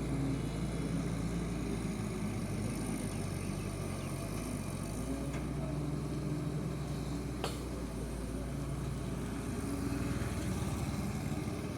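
Large excavator's diesel engine running steadily, with one short sharp click about seven seconds in.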